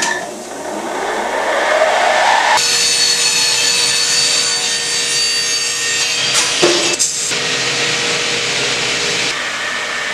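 Electric picture-framing mitre saw spinning up with a rising whine, then its large blades cutting through a wide wooden frame moulding with a loud, steady noise, briefly broken about two-thirds of the way through. The sound eases a little near the end.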